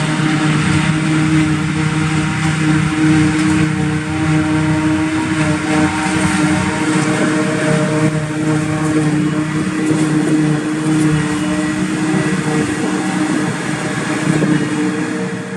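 New Holland self-propelled forage harvester running at work, chopping grass and blowing it into a silage wagon towed by a tractor alongside. It makes a steady, loud engine and chopper drone with a constant hum.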